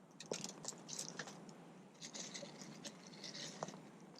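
Quiet, intermittent rustling and scraping with a few small knocks, from vegetables being cut with a knife and handled for a foil-packet hobo dinner.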